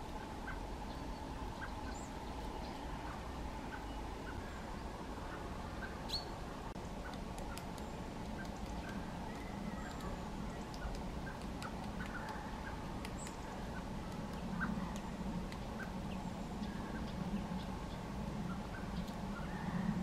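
Eurasian nuthatch pecking at peanuts in their shells: scattered light, irregular taps and ticks, over a steady low background rumble.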